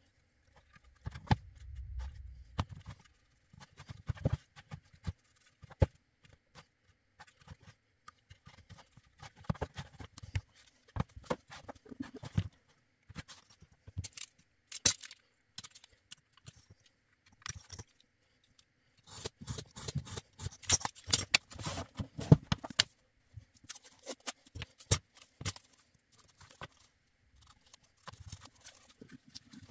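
Workbench handling noises: irregular clicks, knocks and scrapes as a small wooden box, pieces of greyboard and a steel ruler are moved about on a cutting mat, busiest about two-thirds of the way through.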